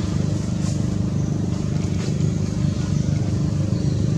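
A steady low engine hum, unchanging in pitch.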